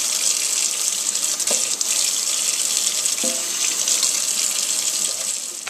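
Kitchen faucet running steadily into a stainless steel sink, the stream splashing over celery stalks held under it as they are rinsed and trimmed.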